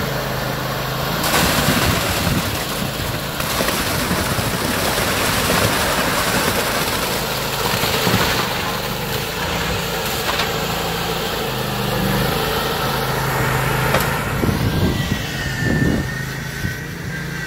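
Engine of a tracked motorized concrete buggy running steadily while it dumps concrete into a footer trench.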